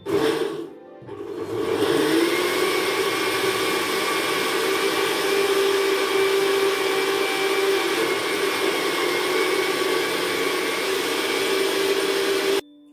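Countertop blender running with its lid held down, blending chunky raw vegetables, fruit and frozen banana with water into a smoothie. A short first burst, then the motor comes up to a steady, loud high-speed run with an even hum, and it cuts off suddenly near the end.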